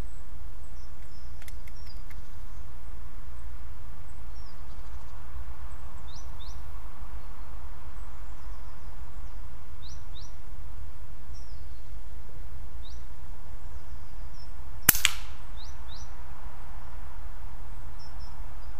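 FX Impact M3 .25 pre-charged pneumatic air rifle firing a single zeroing shot about fifteen seconds in: one sharp crack. Small birds chirp now and then throughout.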